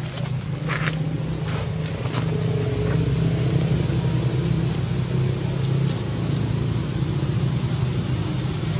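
A steady low engine rumble, like a motor vehicle running nearby, swelling slightly about three seconds in. A few light clicks, like rustling, come in the first two seconds.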